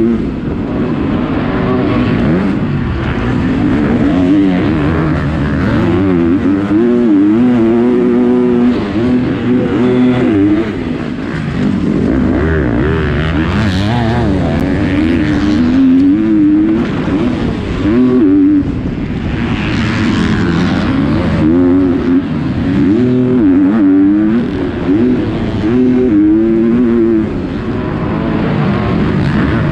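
250cc four-stroke motocross bike heard from onboard at race pace: the engine revs up and falls back again and again as the rider accelerates, shifts and rolls off for jumps and corners, over a constant rushing noise.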